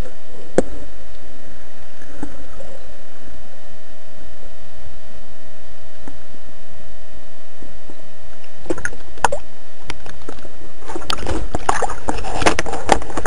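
Muffled underwater sound with a steady hum and a few sharp clicks. About eleven seconds in, it turns to dense splashing and crackling as the water surface is broken.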